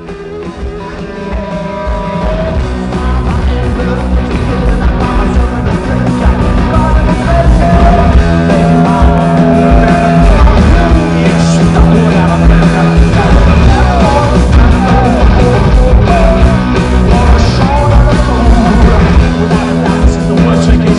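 Rock band playing live: electric guitars over a drum kit, in a raw garage-blues sound. The music grows louder over the first several seconds, then holds at full level.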